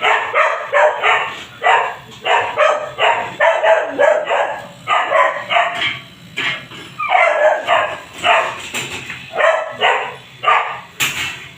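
A dog barking over and over, about two barks a second without a break.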